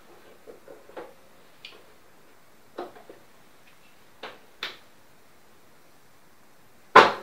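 Handling noise from setting up an electric keyboard: a jack cable plugged into its input socket, with a few scattered light clicks and taps, then a loud sharp knock near the end.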